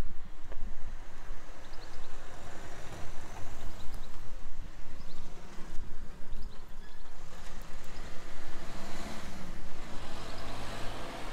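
A car passing, its engine and tyre noise swelling over a few seconds near the end, while small birds chirp now and then.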